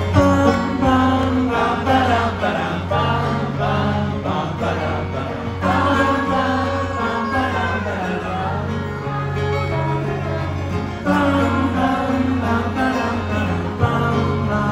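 Live acoustic folk performance: banjo and acoustic guitar playing, with two men singing together in harmony.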